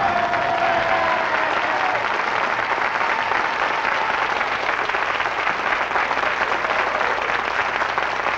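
Studio audience applauding steadily, starting right as the song's music stops.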